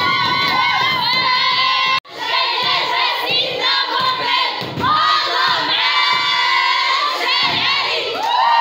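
A group of women cheering and shouting in celebration, many high, wavering voices at once. The sound cuts out for an instant about two seconds in, then the cheering resumes.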